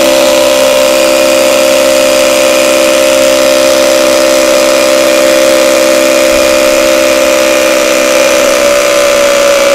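HUKAN cordless three-function rotary hammer with a brushless motor, hammer-drilling into a concrete block with a 10 mm bit. It runs at a steady full speed with a high, even whine.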